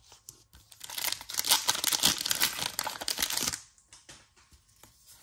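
Foil wrapper of a Pokémon card booster pack crinkling and tearing open for about three seconds, with small clicks before and after.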